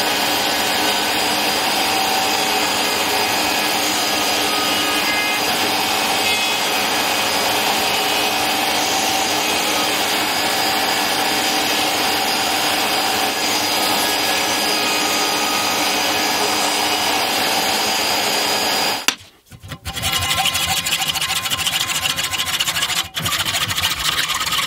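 Router table running with a small roundover bit rounding the edges of film-faced plywood parts to a 2 mm radius: a steady high whine over the cutting noise. About 19 seconds in it cuts off, and a hacksaw starts cutting through a steel threaded rod clamped in a vise, with rasping back-and-forth strokes.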